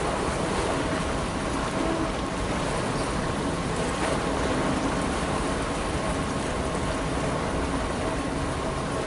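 Gusty wind buffeting the microphone, a steady rush with rumble in the low end, over a faint steady hum.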